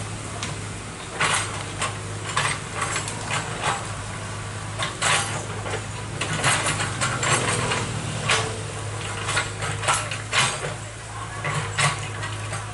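Excavator dredging a river: its diesel engine runs steadily while irregular sharp metallic clanks and knocks sound throughout, from the bucket and machinery working in the riverbed.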